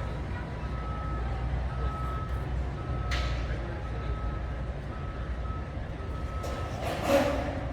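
Backup alarm on construction equipment beeping about once a second over a low engine rumble, with a short hiss about three seconds in and a louder noisy burst near the end.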